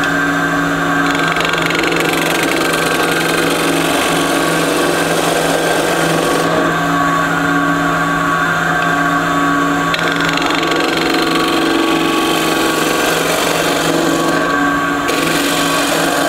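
Wood lathe running while a spindle gouge cuts into a spinning bocote blank: a steady motor hum under the scraping hiss of the tool shaving wood, the cutting noise growing and easing in strength as the tool moves.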